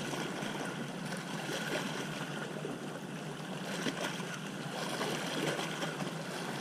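Steady outdoor water and wind noise with a faint low hum running under it and a few light clicks; no distinct event stands out.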